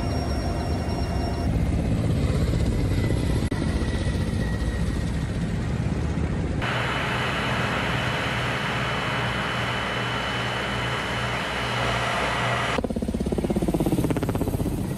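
Helicopter turbine and rotor noise from several recordings cut together, the sound changing abruptly at each cut. Near the end a Ka-52 attack helicopter passes close overhead, its rotor beat loud and pulsing.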